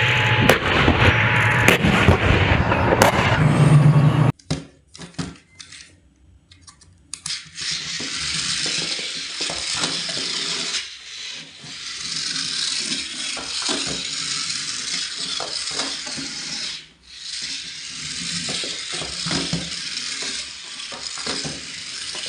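Crinkling, rustling plastic packaging being handled and pulled open, a steady papery hiss broken by small clicks and crackles. It follows a loud burst of sound in the first few seconds and a few scattered clicks.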